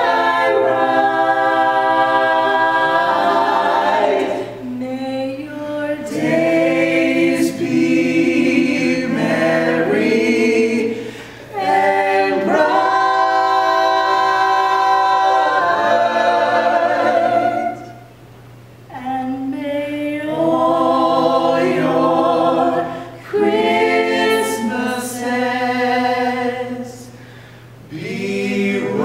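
A choir singing a cappella in long held chords, phrase by phrase, with brief breaths between phrases.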